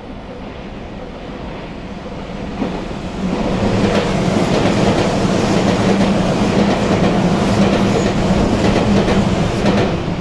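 Tobu 100 series electric limited express approaching and running through a station at speed. The noise builds for about three seconds, then turns into a loud, steady rush with a low hum and rapid clicking of wheels over the rail joints.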